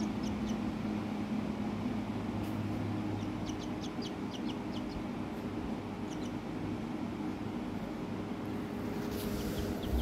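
A black downy baby bird peeping: short high cheeps in quick runs, a few near the start, a run of about eight about three and a half seconds in, a couple more later and another run near the end. A steady low hum runs underneath.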